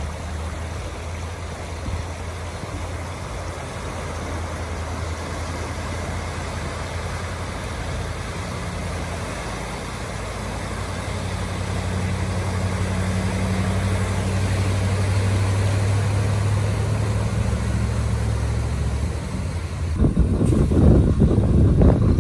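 A pickup truck's engine running as it drives through deep floodwater, over a steady rush of water; the engine hum grows louder towards the middle. Near the end it gives way to wind buffeting the microphone.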